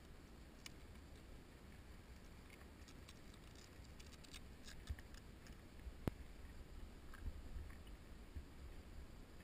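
Faint handling noise from a quadcopter being worked on by hand: small scattered clicks and rustles from its frame and battery wiring over a low steady rumble, with one sharper click just after six seconds. The motors are not running.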